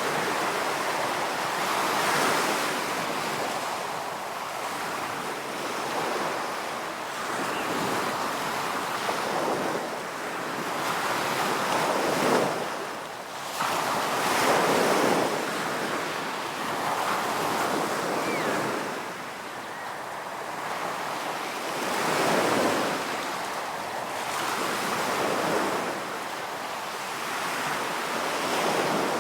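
Ocean waves breaking on a beach, the surf swelling and easing every few seconds, with some wind noise.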